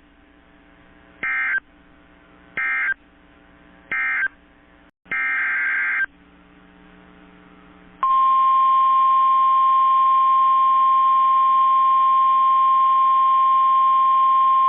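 NOAA Weather Radio SAME data bursts: three short squawks of warbling digital tones about a second apart, which close the previous message, then a longer header squawk about five seconds in. About eight seconds in, the steady single-pitch 1050 Hz Weather Radio warning alarm tone starts and holds, announcing a new warning.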